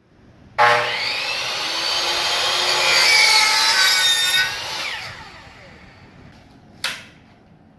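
Compound miter saw crosscutting a laminate flooring plank: the motor starts with a rising whine, cuts through the plank for about four seconds, then winds down after release. A single sharp clack near the end.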